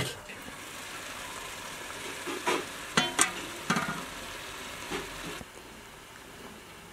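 A sharp metallic knock of a pot lid, then a pot of tomato sauce bubbling and sizzling with a steady hiss. A few ringing metal clinks and knocks of utensil and pot come through the middle. The hiss cuts off suddenly about five seconds in.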